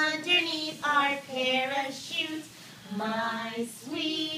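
Women singing a children's song, with notes held for about half a second each.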